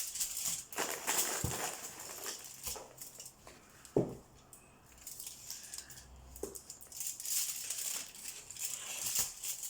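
Irregular crinkling and rustling of a tinfoil pan as gloved hands press cookie dough onto it, with one sharp knock about four seconds in.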